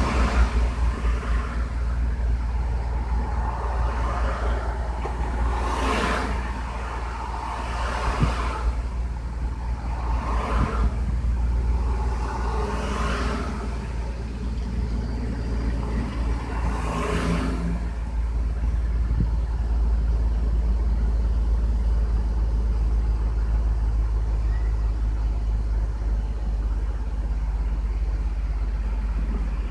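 Lexus RX300's 3.0-litre V6 idling steadily at a high idle that will not come down, which the owner puts down to the idle air control valve sticking slightly open or to the engine computer. A few brief whooshes of noise pass over it in the first half.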